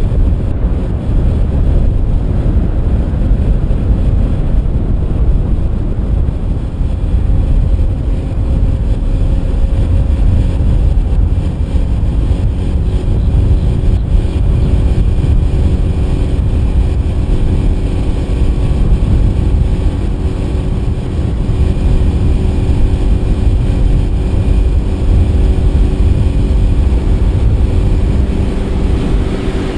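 Yamaha F250 four-stroke outboard driving a Cobia 237 center console at speed, a steady engine drone over a continuous rush of wind and water. The engine's tone comes through more clearly from about halfway on.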